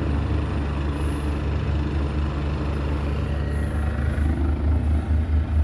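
Cadillac DeVille's Northstar V8 engine idling, a steady low rumble that turns uneven and pulsing, about three throbs a second, in the second half.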